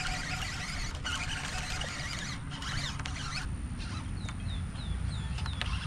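Wind rumbling on the microphone under a steady scratchy rustle, with a run of about seven short high chirps, each falling in pitch, from about four seconds in.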